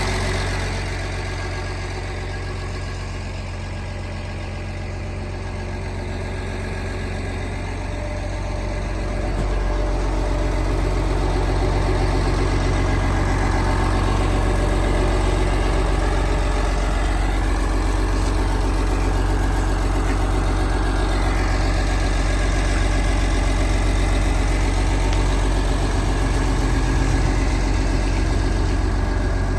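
Liebherr PR756 bulldozer's diesel engine running steadily. It eases off for a few seconds, then comes up to a louder, steady level about nine seconds in and holds there.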